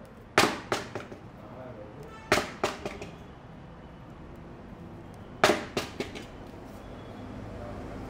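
A new Bridgestone car tyre hit three times over, each time in a quick run of three impacts that get weaker and closer together, each with a short tinny ring. This jangly 'khyan khyan' ring is what the shop takes as a sign the tyre will make more road noise than the Yokohama.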